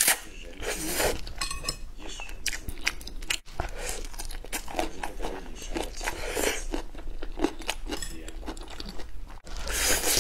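A person slurping and chewing noodles eaten with chopsticks: a run of short, irregular wet slurps and chews.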